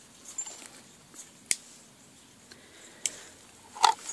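Handling clicks from coiled cables and their connectors being lifted and knocked about inside a plastic case. There are a few sharp, separate clicks, and the loudest comes just before the end.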